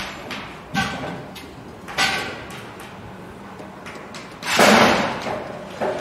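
Building site work sounds: two sharp metal clanks that ring on briefly, about a second and two seconds in, then a louder clatter lasting most of a second a little past halfway, over a faint steady low hum.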